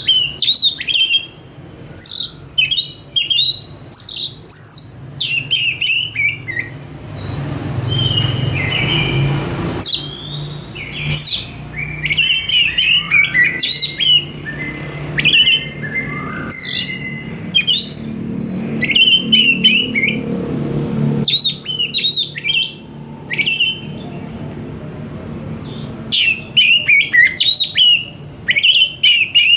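Oriental magpie-robin (kacer) singing a loud, varied song of quick whistled and chattering phrases, delivered in rapid bursts with short pauses between them. A low hum runs underneath through the middle stretch.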